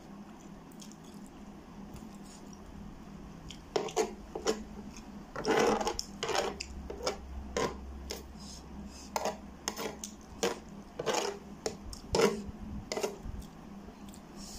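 A metal spoon scraping and clinking against a tray while scooping up saucy noodles: a run of irregular sharp clicks and short scrapes that begins about four seconds in.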